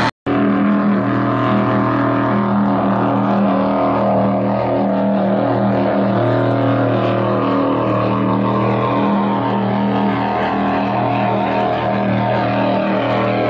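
32 Active Thunder powerboat's engines running steadily at speed, a deep, even drone. It drops out for a split second right at the start.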